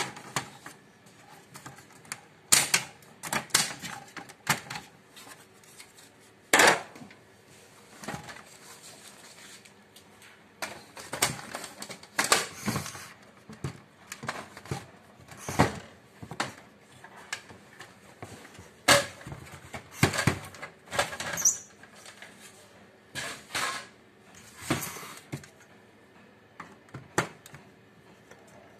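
Plastic housing of an HP LaserJet 1213 printer being taken apart by hand: irregular sharp clicks, snaps and knocks as covers and panels are lifted and handled, with a brief high squeak about two-thirds of the way in.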